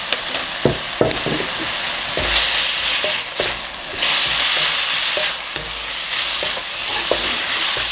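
Blanched lettuce stems and garlic sizzling in hot oil in a stainless steel pan as a wooden spatula tosses them: a steady frying hiss that swells and eases as the stems are turned, with a few light knocks of the spatula against the pan.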